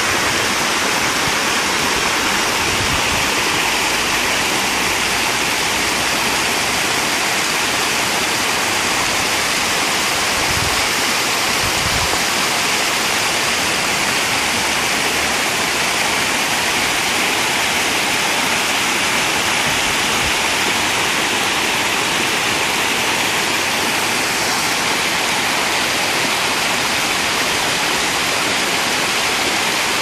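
Mountain stream rushing over boulders and a small waterfall: a steady, unbroken rush of falling and splashing water.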